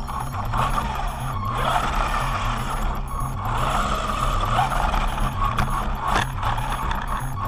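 Small brushed-motor electric RC monster truck (Remo Hobby SMAX, 1/16 scale) driving over asphalt, its motor and tyre noise heard from a camera mounted on the truck, with dips as it eases off. Background music with a steady bass line plays underneath.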